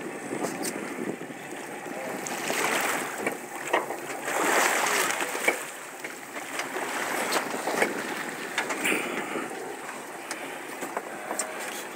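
Water sloshing and splashing against the side of a boat, with wind noise and a few sharp knocks. The splashing swells louder twice, a few seconds in.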